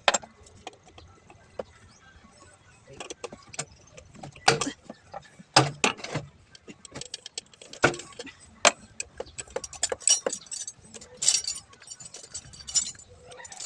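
Metal hand tools and parts clinking and knocking at irregular intervals, with a spell of jingling clatter near the end.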